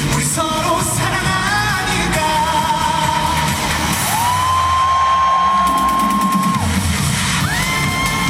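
Live trot song: a male singer over a loud band backing track, with long sustained high notes held in the second half.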